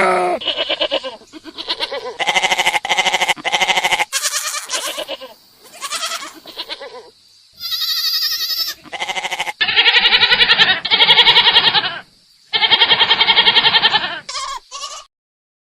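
Goats bleating over and over, about a dozen wavering, tremulous bleats with short gaps between them, one higher-pitched call about halfway through.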